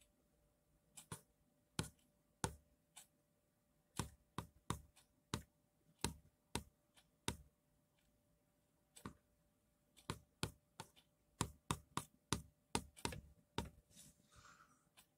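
A run of sharp, short clicks and taps at uneven spacing, some in quick pairs and clusters, over a faint steady hum.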